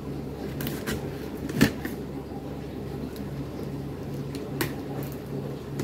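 Scissors cutting and scraping along packing tape on a cardboard box, giving several sharp clicks and scrapes, the loudest about a second and a half in, over a steady low hum.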